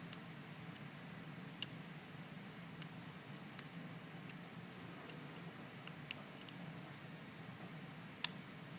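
Small, sharp metallic clicks of a lock pick working the pins inside a stainless steel pin-tumbler padlock, about ten of them at irregular intervals, the loudest near the end.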